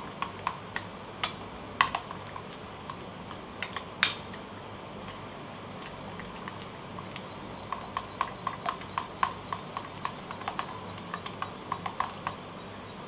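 A spoon beating a thick pakora batter in a bowl, clicking against the bowl's side as the batter is whisked to get rid of lumps. A few scattered clicks at first, then, from about two-thirds of the way in, a quick, fairly regular clicking of several strokes a second.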